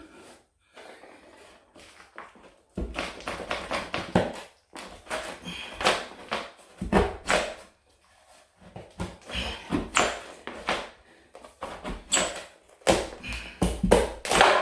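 Irregular knocks, clatter and scraping of hands handling a freshly pried-off wooden baseboard and a small pry bar, starting about three seconds in after a quieter stretch.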